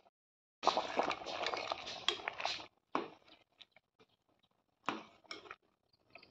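A metal spoon working in a stainless steel pot of bamboo shoots in broth: about two seconds of dense scraping and stirring noise starting half a second in, then a few separate clinks of the spoon against the pot.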